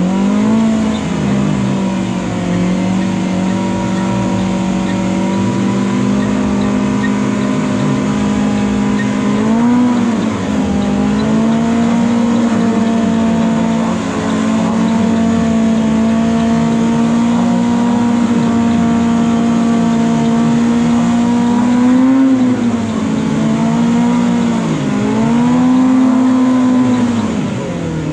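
Off-road side-by-side buggy engine revved up and held at high, steady revs for long stretches, dipping briefly and coming back up a few times, several times near the end, as the buggy tries to climb a rock ledge.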